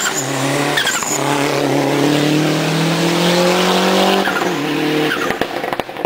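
Rally car's engine accelerating hard uphill out of a hairpin: the pitch climbs steadily through a long gear and drops at a gear change about four seconds in. Near the end comes a rapid rattle of sharp pops, about ten a second.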